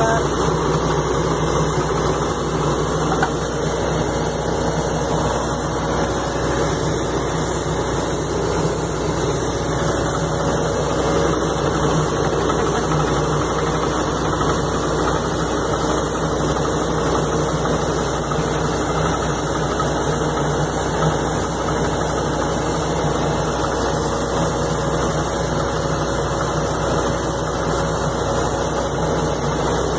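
Crawler-mounted anchor drilling rig's engine running steadily, a constant machine drone with no breaks.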